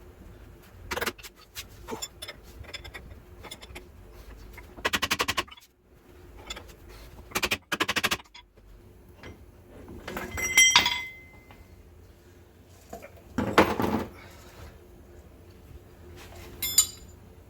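Metal tools working on a ball joint being pressed into a truck's control arm: scattered knocks, two short bursts of rapid clicking, and a couple of ringing metal clinks.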